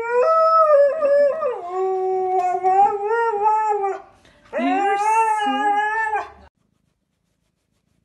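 Siberian husky howling in two long, wavering calls, the first sliding down in pitch partway through, the second shorter.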